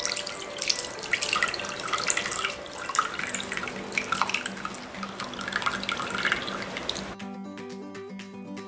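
Kokum extract poured from a small glass bowl into a large glass bowl, splashing and trickling irregularly, then stopping suddenly about seven seconds in.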